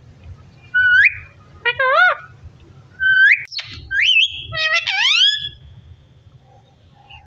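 Pet parrot whistling and calling: short rising whistles about a second in and again at three seconds, a wavering call between them, then a run of rising-and-falling calls that stops about two seconds before the end.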